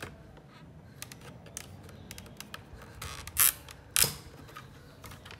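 Small screwdriver prying at the plastic locks of an XUV500 side-mirror indicator lamp housing: light plastic clicks and scrapes, a short scraping rasp about three seconds in, then one sharp plastic click about four seconds in as a lock releases.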